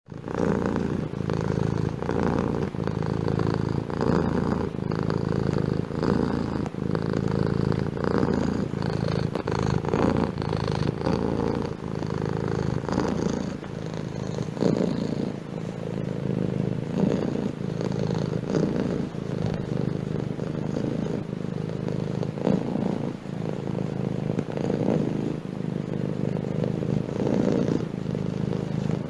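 Domestic cat purring close up, a continuous rumbling purr that swells and eases with each breath in and out.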